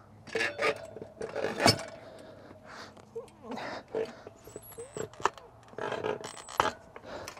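Motorcycle wheel being set onto a steel manual tire-changer stand and worked with its bead-breaker lever: irregular metal clanks, clinks and knocks, with one sharp knock about a second and a half in and a few short squeaks.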